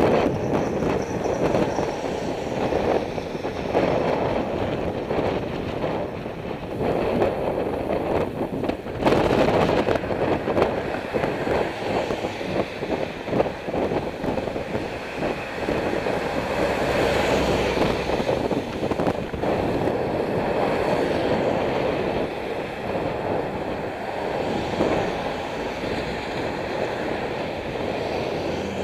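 Wind buffeting the microphone of a camera on a moving bicycle, mixed with tyre and traffic noise, with a brief bump about nine seconds in.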